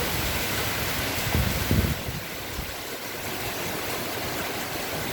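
Strong gusty wind blowing, with gusts buffeting the microphone in low rumbles about a second and a half in.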